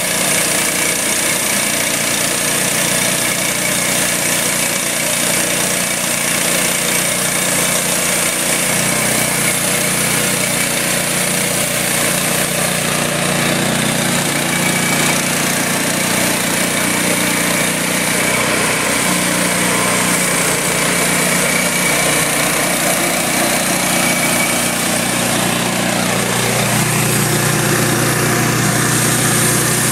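Portable bandsaw sawmill sawing through an oak log: its small gas engine runs steadily under load while the band blade cuts, the engine note shifting slightly a few times.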